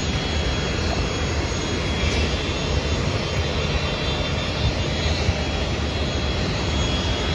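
Jet airliner engines running at the airport: a steady rumble with a thin, constant high whine.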